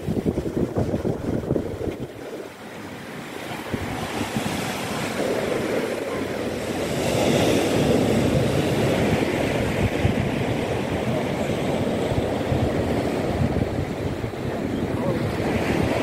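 Wind buffeting the microphone over the continuous wash of waves breaking on the beach. The surf swells louder and hissier from about a third of the way in.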